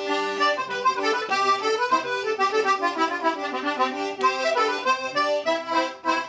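Small toy button accordion, refitted with reeds taken from a C/G diatonic button accordion, played to try out the swapped-in reeds: a tune with several notes sounding at once, the notes changing several times a second. The playing cuts off near the end.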